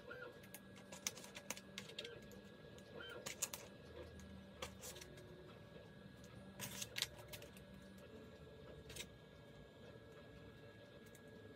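Thin laser-cut aluminium vent slats clicking and tapping faintly against each other as they are slid into their slots and held together by hand. The small clicks come irregularly, in little clusters, with the loudest about seven seconds in.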